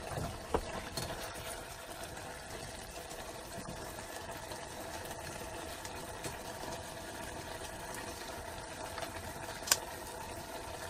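Vegetable stew simmering in a stainless steel pot on a gas burner: a steady, even hiss. A few light clicks from utensils on the pot, with one sharp click near the end.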